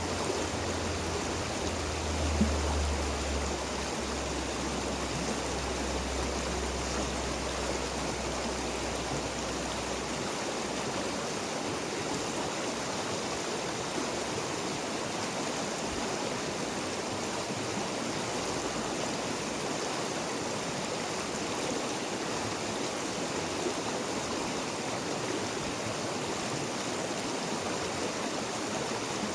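River water flowing in a steady, even rush. A low rumble sits underneath for about the first ten seconds, and there is a single small knock about two and a half seconds in.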